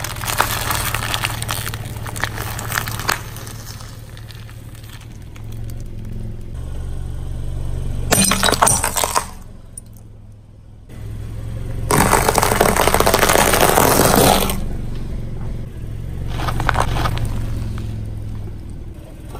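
A car tyre rolling slowly over crunchy things, foil snack packets and brittle food pieces, crushing them with crackling and crunching in several separate bouts, the longest and loudest about twelve to fourteen seconds in. A steady low engine hum runs under the crunching.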